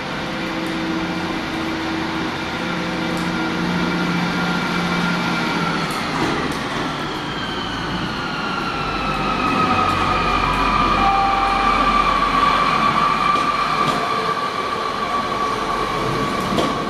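Diesel multiple-unit train running in and passing close by. Its engine hums steadily at first, then a high squeal slides slowly lower in pitch as the train goes past, loudest about two-thirds of the way through.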